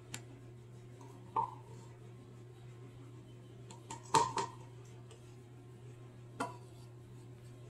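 A measuring cup clinking and knocking against the mixing bowls as flour is scooped and tipped in: several separate knocks, the loudest one ringing briefly about four seconds in. A faint steady low hum sits underneath.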